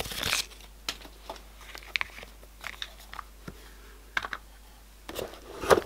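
Sparse light clicks and taps of small plastic toy pieces and packaging being handled, with a short rustle at the start and busier handling noise near the end.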